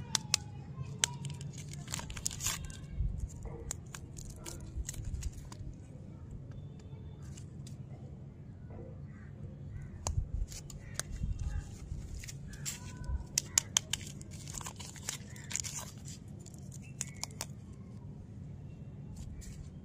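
Paper lollipop wrappers crinkling and tearing as they are peeled off small stick lollipops, in bursts of sharp crackles with pauses between.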